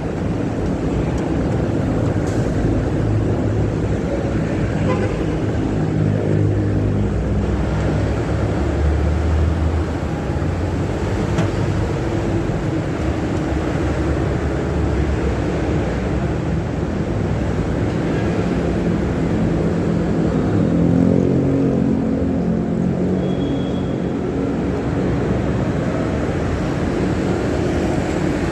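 Steady, loud mechanical running noise with a low hum, and engine-like tones that rise and fall a few times.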